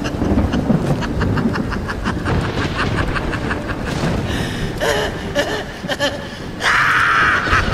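A person laughing in a long run of quick, even ha-ha pulses, about five a second, swelling into a louder, held stretch near the end.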